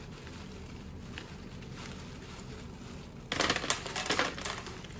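Small gravel ballast poured from a plastic bag through a paper funnel into a pond bottom drain's weight: a few faint ticks at first, then about three seconds in a sudden rush of stones clattering and the bag crinkling, in uneven spurts.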